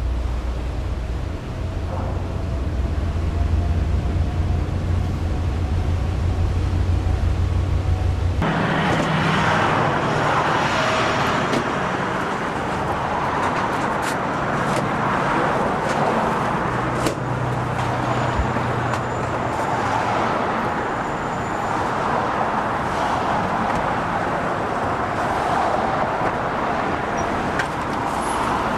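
A low, steady rumble for about the first eight seconds, then city street traffic noise: the steady wash of cars going by.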